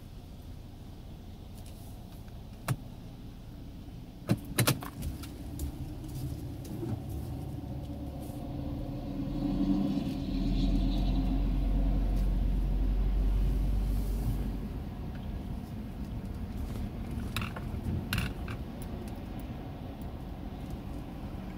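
Car engine and road noise heard from inside the cabin while driving slowly, with a few sharp clicks and rattles. About ten seconds in the engine and low rumble swell louder for around four seconds, then settle back.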